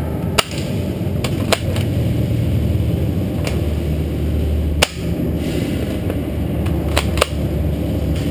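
Airsoft guns firing: about five single sharp cracks spread over several seconds, the loudest near the middle and two in quick succession toward the end, over a steady low rumble.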